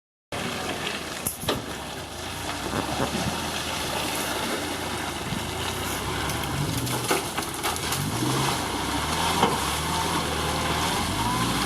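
A car engine revving up and down in repeated bursts as the wheels churn through water and mud, with a steady splashing hiss.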